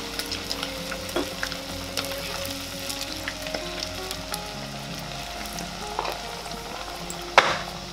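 Potato patties deep-frying in a wok of hot oil, sizzling and crackling steadily as a metal slotted spoon stirs them. There is a single sharp knock near the end.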